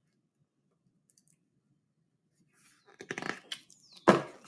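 Hardcover picture book being handled: after a quiet start, pages rustle and flip from about three seconds in, with a sharp knock just after four seconds as the book is set down or bumped.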